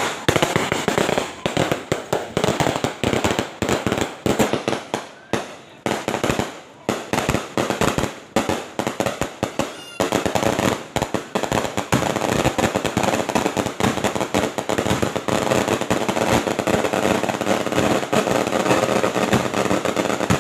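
A long string of firecrackers going off in rapid bangs. It starts suddenly, comes in quick volleys with brief gaps for about ten seconds, then turns into near-continuous crackling.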